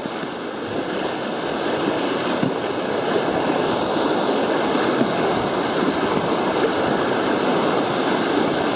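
Steady rushing noise of water and wind around a moving boat, building over the first few seconds, with no engine tone in it.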